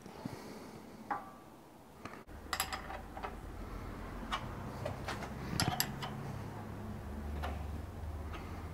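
Scattered light metallic clicks and knocks as a three-jaw chuck on a small rotary table is handled and nudged on a pillar drill table to centre the work. A low steady hum comes in about two seconds in.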